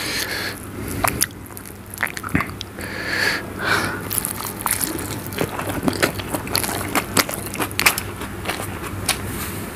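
Close-miked eating: a man chewing mouthfuls of gravy-soaked egg omelette, with irregular clicking mouth sounds throughout.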